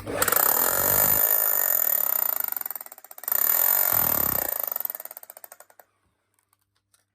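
Hilti TE 60 rotary hammer running in hammer-only (breaker) mode: two runs of rapid hammering, the first about three seconds long, the second winding down and stopping about six seconds in. The hammer action works even though the drill's rotation is faulty.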